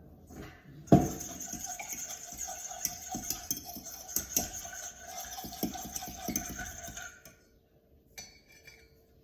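A fork beating the egg mixture in a bowl: a sharp knock about a second in, then rapid clinks of the fork against the bowl that stop about seven seconds in.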